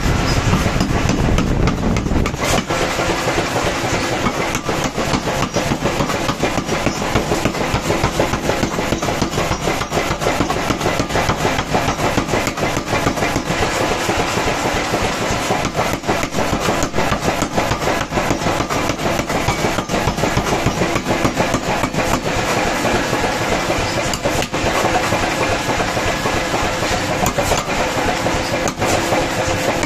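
Power hammer forging a red-hot metal bar on its anvil, the ram striking in a rapid, steady series of blows.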